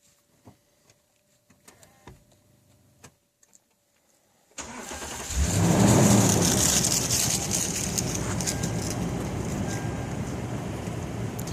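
Truck engine starting up about halfway through, after a few faint clicks and taps. It swells briefly, then runs steadily.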